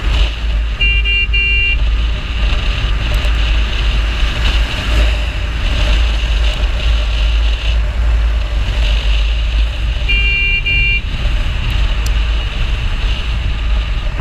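Bajaj Dominar 250 motorcycle cruising at about 80–90 km/h, heard mostly as heavy wind buffeting on the microphone. A horn gives a quick double toot about a second in and again about ten seconds in.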